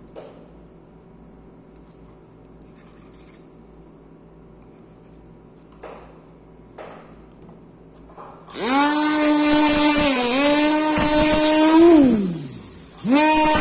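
Dental lab micromotor handpiece with a bur. After a few quiet handling clicks it spins up about two-thirds of the way in to a steady high whine, its pitch dipping briefly. Near the end it winds down with a falling pitch, then starts up again.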